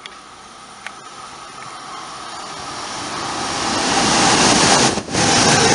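Approaching train: a rising rumble and rail noise that grows steadily and is loud from about four seconds in, with a brief dropout near the end.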